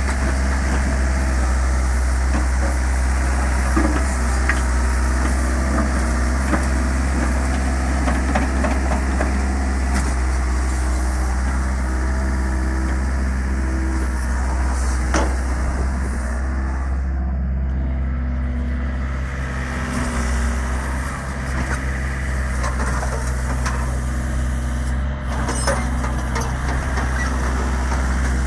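Hyundai Robex 55-7A mini excavator's diesel engine running steadily while the machine digs and swings its bucket, with a few short metallic knocks from the working machine.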